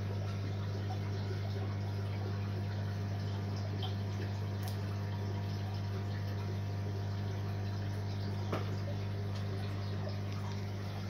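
An aquarium sump system running: a steady low hum from the pump, with water trickling and splashing through the sump.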